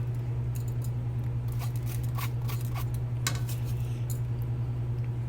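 Scattered light clinks and knocks of a metal strainer and cooking pot being handled as rinsed millet is put back into the pot, over a steady low hum.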